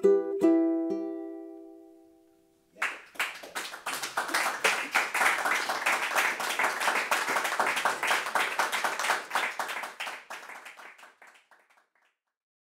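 Ukulele plays its last few plucked notes, and the final chord rings out and dies away. About three seconds in, an audience starts applauding, and the applause fades out near the end.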